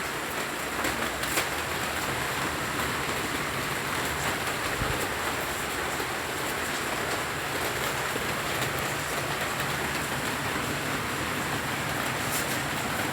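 Steady rain falling: an even hiss with scattered sharp ticks of drops striking surfaces.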